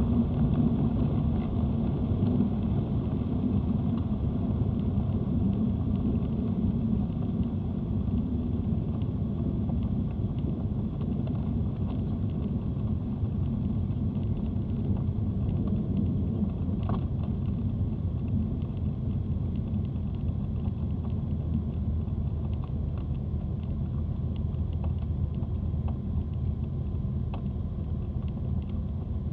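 Cessna 310's twin piston engines and propellers droning steadily, heard from inside the cabin, growing slightly quieter over the first several seconds.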